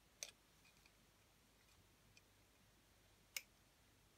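Near silence broken by two faint clicks of pliers on stiff steel piano wire being shaped by hand, one just after the start and a sharper one about three seconds later.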